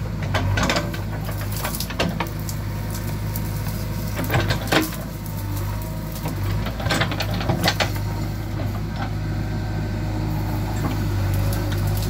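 JCB 3DX backhoe loader's diesel engine running steadily while the backhoe works through brush, with repeated short sharp cracks and clatter of branches and machinery throughout.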